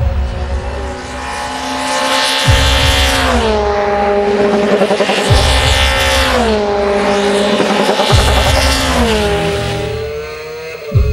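Race car engine note whose pitch drops in steps, repeating almost identically about every three seconds, with a deep thud at the start of each cycle.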